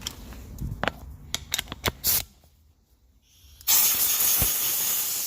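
A few light clicks and knocks of parts and tools being handled, then a little over halfway through a compressed-air blow gun is opened and hisses loudly and steadily, blowing sanding dust off the freshly sanded part.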